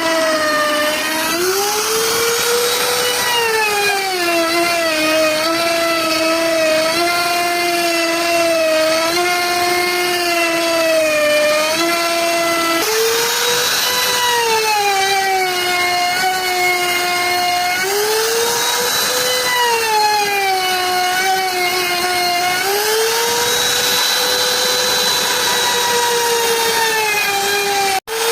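Wood-carving CNC router's spindle whining as it cuts, its pitch rising and sagging every few seconds as the load on the bit changes.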